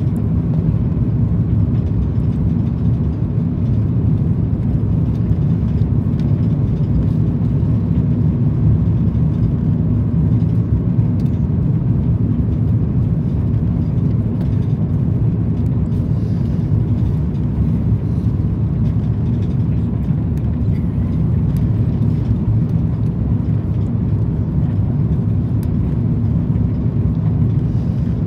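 Steady low rumble of engines and airflow inside the cabin of an Airbus A330 airliner as it lands.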